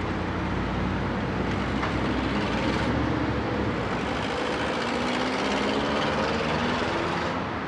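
Terex crawler excavator's diesel engine running steadily, with a hydraulic whine that rises and falls as the boom and sorting grab move.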